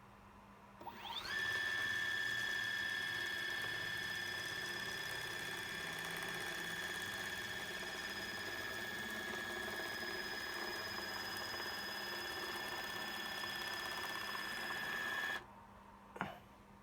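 Small electric motor spinning up with a rising whine, running at a steady high whine, then cutting off suddenly when the limit switch trips. A brief, sharp falling sound follows about a second after the stop.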